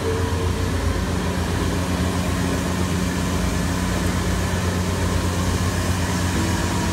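Automatic batch fryer running with a steady mechanical drone as its perforated stainless-steel basket is lifted and tilted up out of the oil; a second, higher hum joins about a second in.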